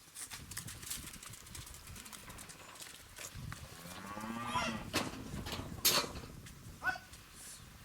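A Bravo cow lowing once, a long moo that rises and then falls in pitch, starting about three seconds in. Several sharp knocks follow near the end.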